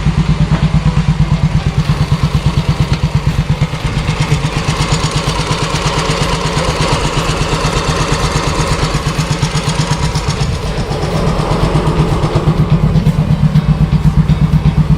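Freshly overhauled Yamaha Mio i 125 scooter's single-cylinder four-stroke engine running just after start-up, idling with an even pulse. It is held a little above idle for several seconds midway, then drops back to idle.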